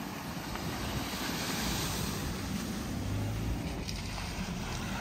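Maruti Suzuki Brezza SUV driving up a dirt bank out of a field onto a track, its engine note swelling briefly about three seconds in, under a steady rumble of wind on the microphone.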